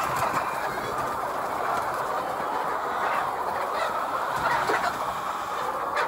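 Dense, steady clucking chorus of a large flock of laying hens, with a few louder individual calls standing out about halfway through.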